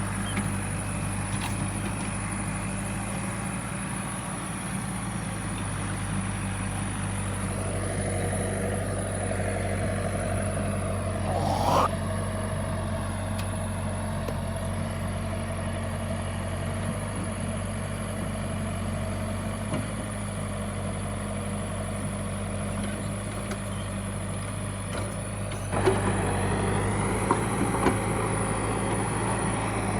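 JCB backhoe loader's diesel engine running steadily while working. A brief rising whine comes about twelve seconds in, and near the end the engine gets louder, with a few sharp knocks.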